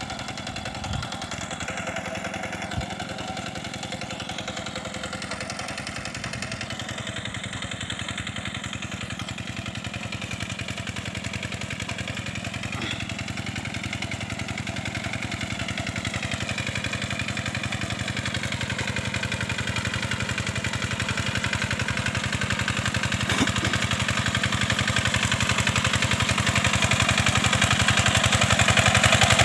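A two-wheel hand tractor's single-cylinder diesel engine runs steadily under load as it drags its cage wheels through paddy mud. It grows steadily louder as the tractor approaches.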